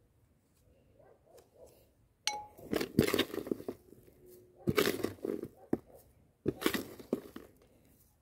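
A metal spoon scooping perlite-rich potting soil and tipping it into a ceramic pot, heard as three bursts of gritty scraping and pattering soil, with light clinks of the spoon against the pot.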